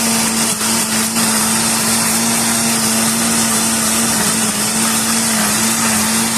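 Kitchen blender running steadily, blending a mixture of milk, condensed milk and paçoca, with a constant motor hum under the whir.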